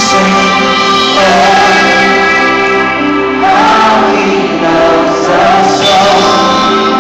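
Live Christian worship music over a stadium stage sound system: steady held chords, with many voices singing that come in about a second in.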